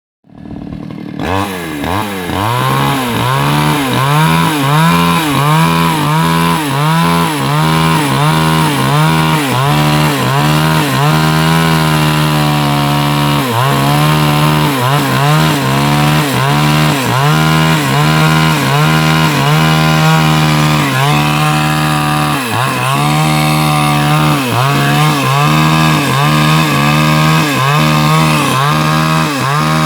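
Two-stroke chainsaw cutting into a wooden log at high revs, its engine note dipping and recovering about once a second as the chain bites into the wood.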